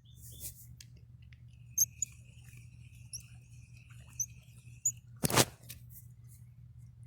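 A low steady hum with a few faint, brief high chirps and a thin high buzz for a few seconds, then one sharp click or knock about five seconds in.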